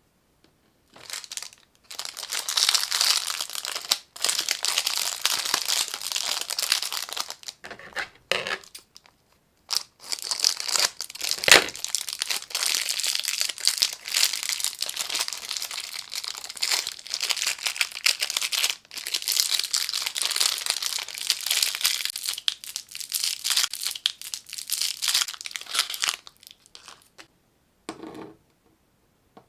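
Plastic lollipop wrappers being unwrapped by hand: close crinkling and rustling that goes on almost without a break, with a few short pauses and one sharp crackle about eleven seconds in.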